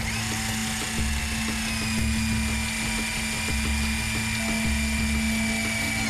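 Cartoon sound effect of a high-pitched mechanical whine, steady after sinking slightly in pitch about two seconds in, over background music with a steady low hum and a pulsing low beat.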